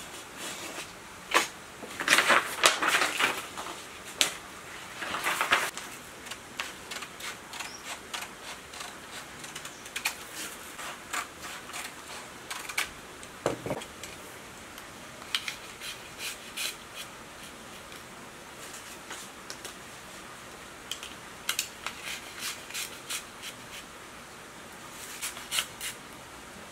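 Stiff insulation paper being handled and fitted into the slots of an electric pump motor's stator. Two bursts of crackling paper rustle come about 2 and 5 seconds in, followed by many scattered light clicks and taps.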